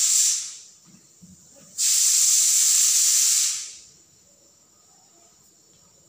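Two loud bursts of steady hissing, a short one at the start and a longer one of about two seconds in the middle.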